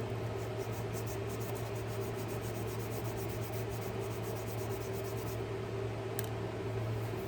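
Steady low background hum with faint, quick light scratching, about five a second, over the first five seconds and one sharp click about six seconds in: small handling sounds as oil is worked onto a folding pocket knife.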